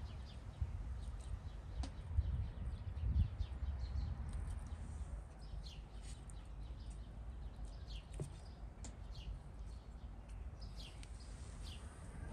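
Small birds chirping on and off with short high calls over a steady low outdoor rumble. A few dull low thumps come about two to three seconds in.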